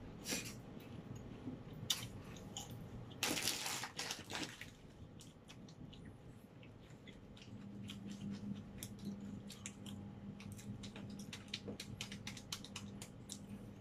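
Close-miked chewing of butter-toasted French bread: many small wet mouth clicks and smacks, with a louder rough burst about three seconds in. A low steady hum comes in about halfway through.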